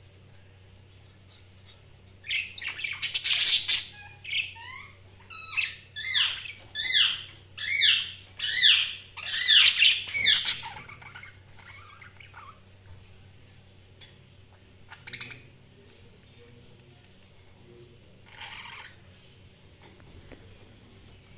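Budgerigar calling: a fast run of loud chirps and squawks, each one quickly sweeping up and down in pitch, lasting about eight seconds. Two more single calls follow further apart near the end.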